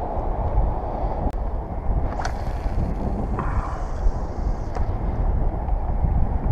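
Strong wind buffeting the microphone: a steady low rumble and rush, with a few faint clicks and a fainter hiss about two seconds in.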